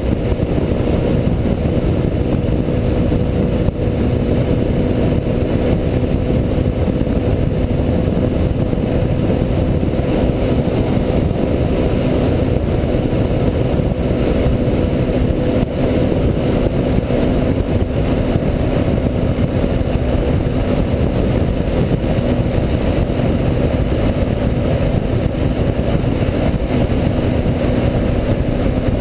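Quad bike engine running at a steady cruising pitch, mixed with heavy wind rumble on the microphone from the ride.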